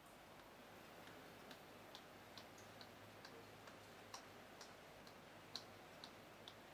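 Chalk tapping and scratching faintly on a chalkboard as small hexagons are drawn, a string of light ticks about two a second.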